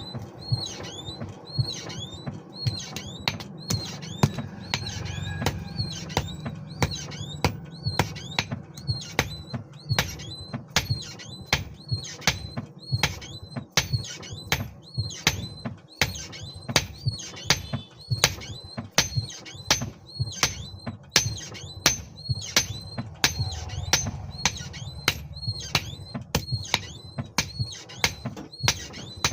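Hammer blows on metal at an anvil, about two a second, each with a short high ring, over a low steady hum.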